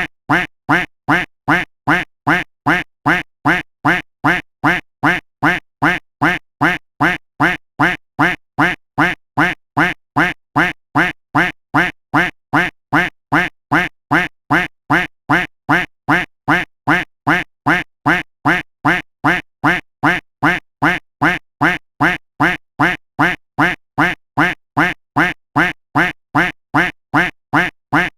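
Duck quack sound effect looped: the same short quack repeated over and over at an even pace, about two quacks a second.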